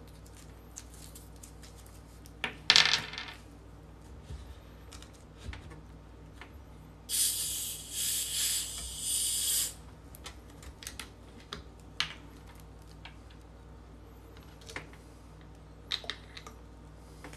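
Cap of a 2-litre Pepsi bottle twisted open, the pressurised carbonation hissing out in three surges over about three seconds midway. Around it come small scattered clicks and rustles of Mentos candies and their wrapper being handled on a wooden table.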